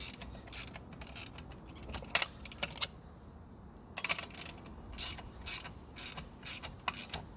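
Wrench clicking in short repeated strokes, about two a second, as the chain tensioner lock nuts are tightened back down. There is a brief pause about three seconds in.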